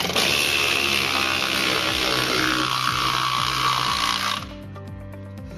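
12V cordless 3/8-inch ratchet wrench running under load, driving a thick threaded carriage bolt into a pre-drilled wooden board; its whine falls steadily in pitch as it works and stops about four and a half seconds in.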